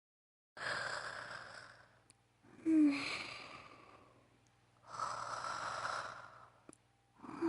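A woman's voice-acted snoring: slow, breathy inhales and exhales, with a short snort that drops in pitch about three seconds in and another near the end. The sound starts out of dead silence, as at a splice in a looped recording.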